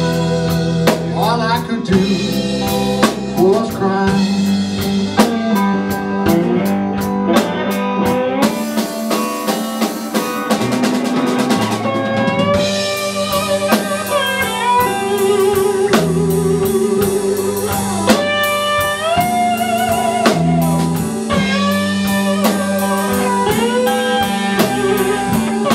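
Live blues band playing: a lead electric guitar solos with bent notes and vibrato over a drum kit and steady bass.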